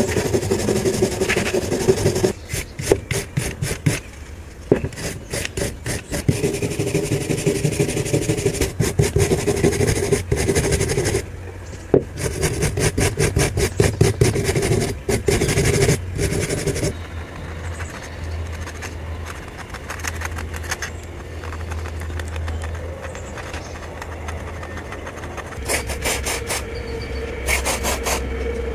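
Hand wire brush scrubbing rust off a small steel hatchet head in bursts of quick back-and-forth strokes, with a few-second pause between bursts. Past the middle the scrubbing stops for several seconds, leaving only a low hum, and near the end the strokes start again.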